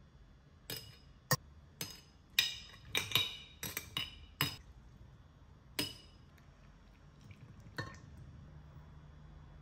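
A metal utensil clinking against a glass mixing bowl and a glass mason jar while chopped radish and carrot are spooned into the jar: about a dozen sharp, irregular clinks over the first six seconds and one more about eight seconds in. Near the end the brine is poured from the bowl into the jar, heard only faintly.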